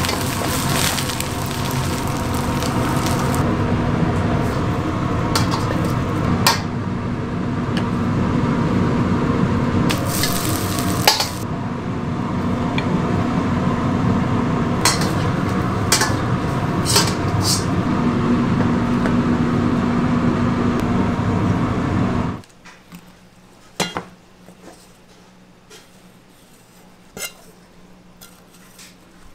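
High-flame wok burner running steadily under a wok while a metal ladle tosses and scrapes fried rice, with sizzling and sharp clinks of the ladle against the wok. About three-quarters of the way in this gives way to a quiet background with a few light knocks of a cleaver on a plastic cutting board.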